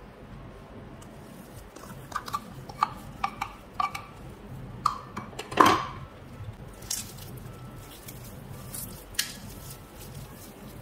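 Light knocks on an aluminium tray, each with a short ring, about eight in quick succession, then one louder thump, as slime and its plastic tub are handled over the tray. After that come fainter crackles of fluffy cloud slime being squeezed by hand.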